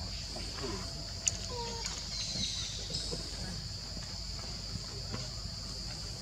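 Steady high-pitched drone of forest insects, with a few short falling calls from an animal or bird and a single sharp click about a second in.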